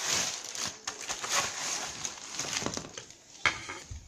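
Rustling and crinkling of plastic wrap and cardboard packaging as a ceiling-fan blade is slid out of its box, with a single sharp click about three and a half seconds in.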